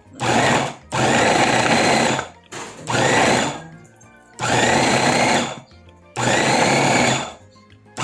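Electric meat grinder run in short pulses, about six bursts of roughly a second each, its motor whining up to speed at the start of every burst, as it grinds meat and vegetables.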